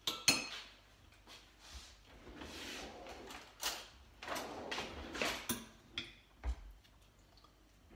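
A kitchen cutlery drawer sliding open, utensils rattling as one is picked out, and the drawer pushed shut. A sharp clatter comes right at the start, and a dull thump near the end.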